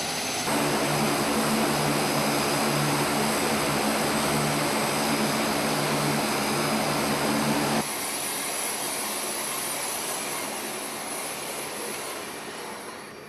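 Turboprop engines and propellers of a WC-130J running: a steady, loud drone with a throbbing propeller beat. It changes abruptly twice, about half a second in and at about eight seconds, and fades near the end.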